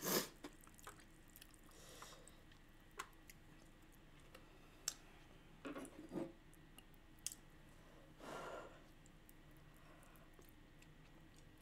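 Faint eating sounds from a person eating spicy instant fire noodles: soft chewing, scattered small clicks and smacks, and one short slurp about two-thirds of the way through.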